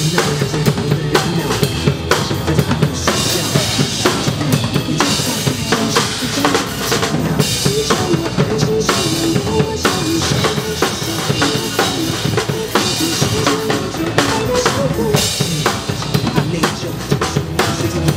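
Drum kit played at a steady beat along to a pop song's recorded backing music, with kick drum and snare strikes in a dense, even rhythm.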